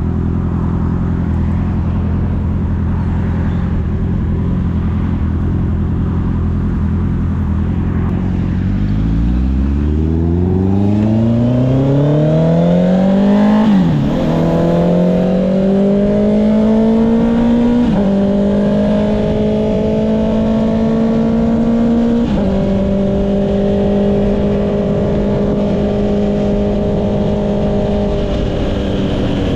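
Honda CB650R inline-four engine through an Akrapovic exhaust, running steadily at low revs, then pulling away with the revs rising. Three quick upshifts follow, at about 14, 18 and 22 seconds, each a sharp brief dip in pitch typical of the quickshifter. After the last shift it runs at steady cruising revs.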